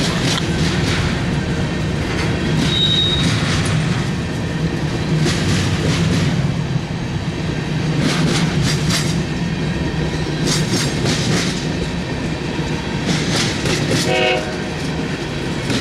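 Freight train cars, covered hoppers then tank cars, rolling past close by: a steady heavy rumble with clickety-clack from the wheels, a cluster of clicks every two to three seconds.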